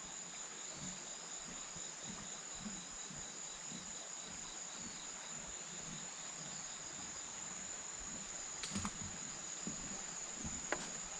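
Insects chirring steadily in one continuous high-pitched tone, over the faint, even rush of a river below. A couple of faint clicks near the end.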